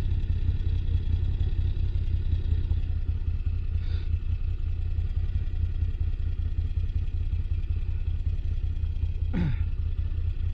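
Moto Guzzi V85TT's air-cooled transverse V-twin running steadily at low, even revs while the bike is ridden slowly off-road.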